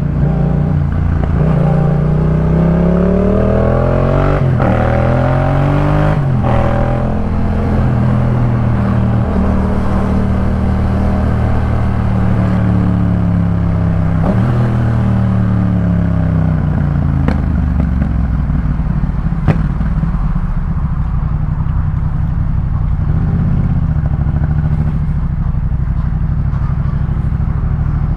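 Yamaha MT-07's parallel-twin engine through a Jeskap K4 full exhaust, revving up through two quick upshifts in the first several seconds, then holding steady cruising revs with one brief shift midway.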